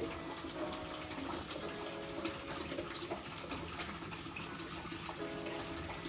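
Water pouring steadily out of an electric water heater's element opening into a container: the tank was not fully drained before the element came out.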